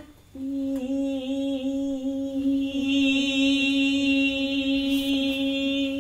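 A woman's voice hums one long held note, wavering slightly at first and then steady. About three seconds in, a bright, high overtone swells above it.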